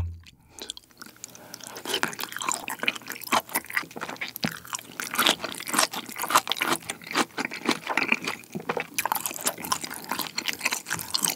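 Close-miked chewing of a mouthful of kimchi pizza tangsuyuk, battered fried pork in a kimchi sauce. Many quick wet crackles and mouth clicks begin about a second in.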